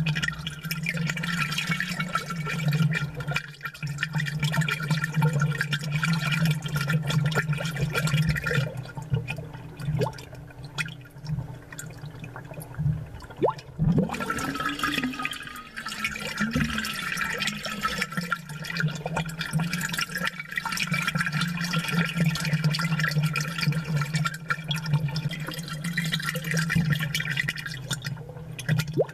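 Amplified aquarium bubbling from an air-driven bubbler in the tank, a dense, continuous gurgle of bubbles breaking at the surface over a steady low hum. The bubbling thins out for a few seconds about halfway through, then picks up again.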